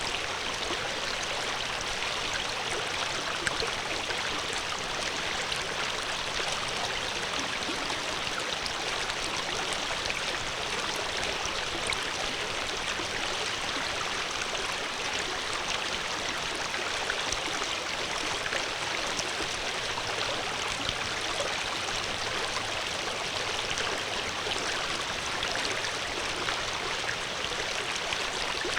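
Flowing water: a steady, even rush that runs without a break.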